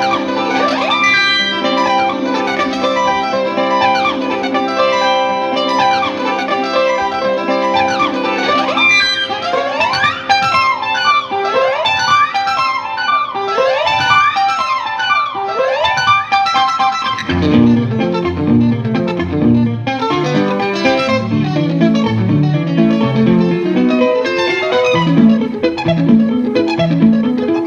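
Electric guitar playing quick melodic runs with pitch bends over a held chord. The chord drops away after about a third, and low notes come in about two-thirds through as a steady rhythmic pattern under the melody.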